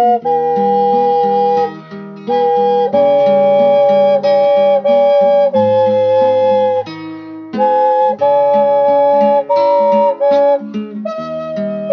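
Double ocarina playing a slow melody in two-part harmony, its two pure, steady tones moving together, over a plucked-string accompaniment. The melody comes in phrases with short breath pauses between them.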